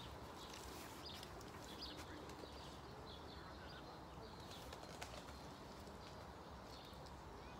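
Faint bird calls, a few short high chirps between about one and four seconds in, over a quiet steady outdoor hiss, with one light click about five seconds in.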